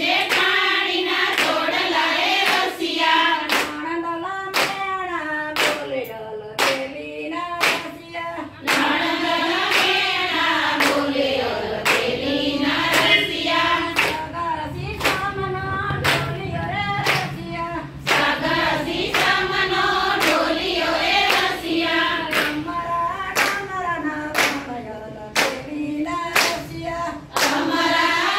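A group of women singing a Gujarati Krishna bhajan together in unison, clapping their hands in a steady beat with the song.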